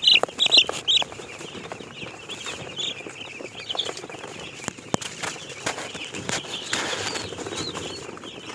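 A flock of broiler chickens calling together in a dense, continuous chatter, with a few louder high calls in the first second and scattered sharp clicks.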